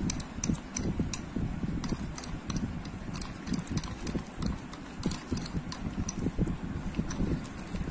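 Hand wire whisk beating Dalda vegetable shortening to a cream in a stainless steel bowl: rhythmic clicks of the wires against the steel, about four a second, over the low churn of the thick fat.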